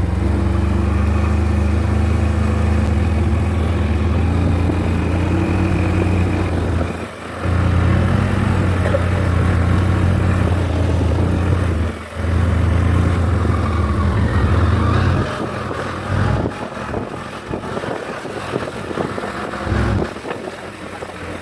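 ATV engine running steadily under throttle while riding. It drops off briefly twice, about 7 and 12 seconds in, then eases to a lower, rougher running about 15 seconds in.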